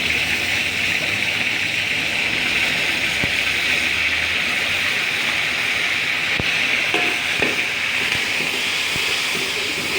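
Hot cooking oil sizzling steadily in a pan as aromatics fry for a Malay meat curry base.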